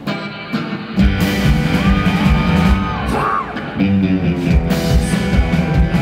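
Live band playing loud country-rock in concert. Drums, bass and electric guitars kick in together about a second in, with a held high note and a short swooping cry over the top partway through.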